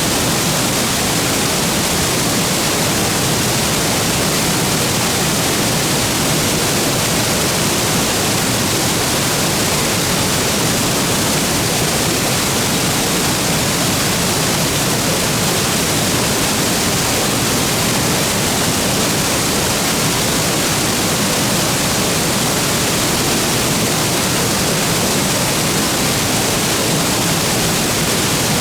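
Waterfall pouring steadily into its plunge pool: a loud, unchanging rush of falling water.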